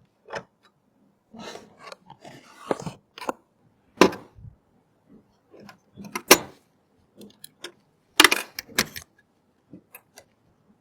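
Irregular sharp clicks, taps and knocks with brief rustling, from computer hardware being handled and fitted together.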